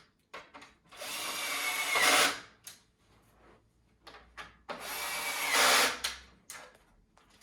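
Ryobi power drill driving bolts into the wooden potting bench in two short runs. Each run grows louder and drops a little in pitch just before it stops as the bolt seats, with small handling clicks between.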